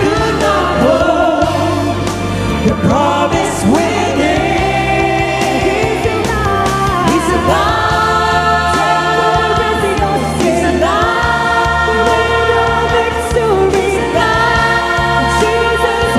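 Gospel choir singing long held notes over a band with bass.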